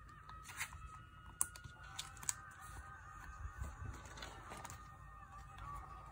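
Light rustling and clicking of photocards being slid into plastic binder-sleeve pockets and handled, with two sharp clicks about a second and a half and two seconds in.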